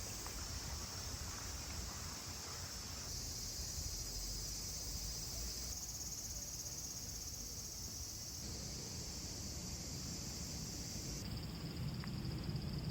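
Steady high-pitched chorus of insects, shifting abruptly in tone a few times, over a low steady rumble.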